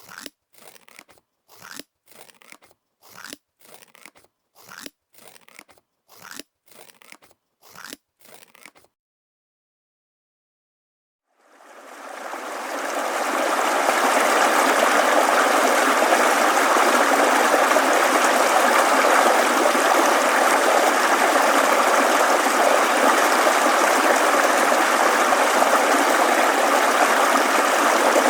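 Scissors snipping paper in a run of short, crisp cuts for about nine seconds, then a pause. A babbling mountain stream then fades in about twelve seconds in and flows steadily.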